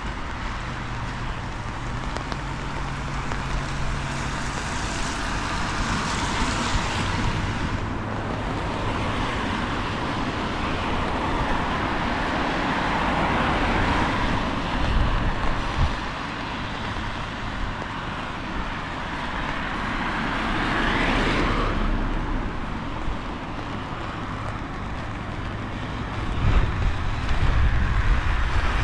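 Street traffic on wet roads: cars passing one after another, their sound swelling and fading several times, over a steady low rumble of wind on the microphone.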